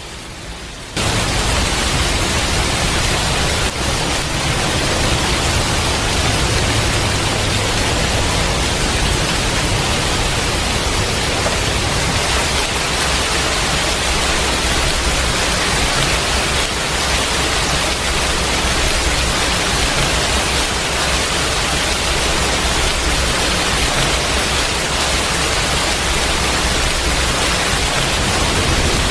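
A steady, loud rushing noise with a low rumble beneath it, starting about a second in.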